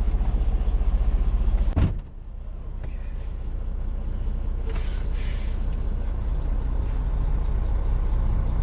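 An old Freightliner truck's diesel engine idling with an even, loud pulsing. About two seconds in, a single clunk cuts it off, and after that the engine sounds quieter and duller, slowly rising again. A short hiss comes about halfway through.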